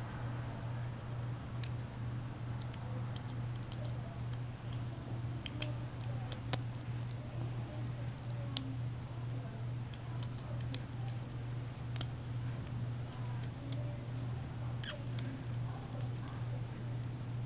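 Light, irregular metallic clicks of a lock pick working the pin tumblers of a five-pin deadbolt under tension, over a steady low hum. The lock's pin springs are very weak and it is sloppy, so the pins overset easily and hardly bind.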